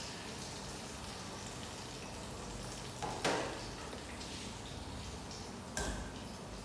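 Food sizzling in a frying pan, a steady crackling hiss. Two sharp clatters of kitchenware cut in, about three seconds in and again near the end.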